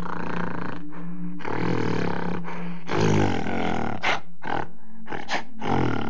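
Gorilla roaring and grunting: a run of harsh, rough calls about a second long each, with shorter bursts between, over a steady low hum.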